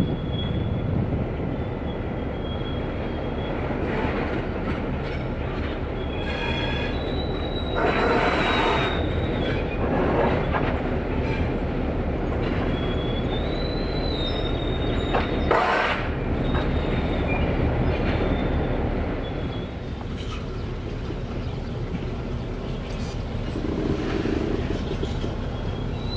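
Freight train rolling slowly over rough, poorly maintained track: a steady rumble and clatter of wheels, with wheel flanges squealing off and on in a high thin tone. Two short, louder grinding bursts stand out, about a third of the way in and past the middle.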